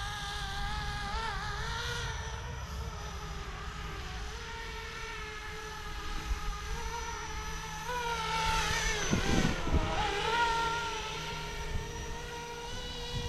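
Electric 450-size RC helicopter in flight, its motor and rotor whine wavering in pitch. About eight seconds in it grows loud as it passes close, the pitch sweeping down, then settles back, with a low rumble underneath.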